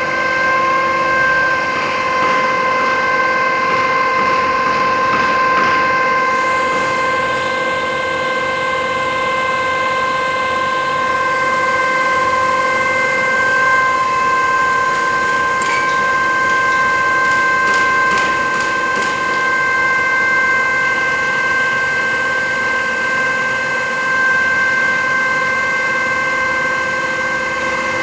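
Hydraulic system of a KCP 52 m truck-mounted concrete pump giving a steady high whine while the boom unfolds and lifts.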